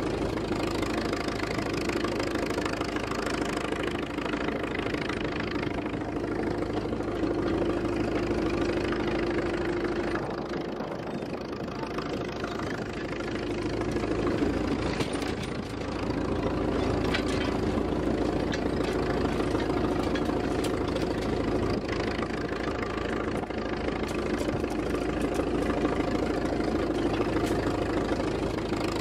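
Case 40-72 tractor's large four-cylinder valve-in-head engine running steadily under load while pulling an eight-bottom plow. It gets quieter for a couple of seconds about ten seconds in.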